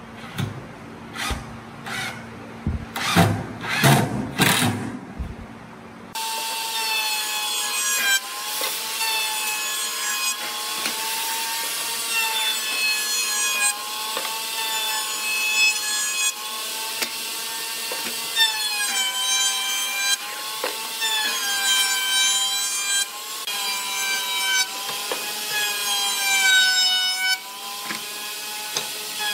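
A cordless impact driver runs in short bursts, driving screws into a wooden chair frame. About six seconds in, a table-mounted router takes over with a steady high whine whose pitch dips and recovers as boards are fed past the bit.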